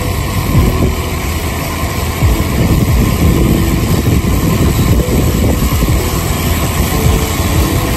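Wind rushing over the microphone of a camera on a moving road bike: a loud, steady rumble with irregular low buffeting.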